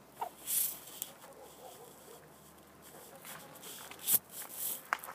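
Hens dust bathing, scratching and flicking dry dirt and straw: irregular bursts of scratchy rustling and patter, the loudest about half a second in and again a little after four seconds in.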